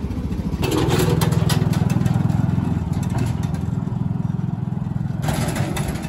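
An engine running close by with a steady, fast low throb, getting louder about half a second in, with a few clattering knocks over it.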